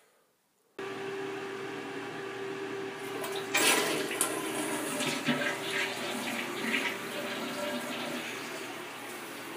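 Toilet flushing: rushing water that starts suddenly just under a second in, with a louder surge about three and a half seconds in.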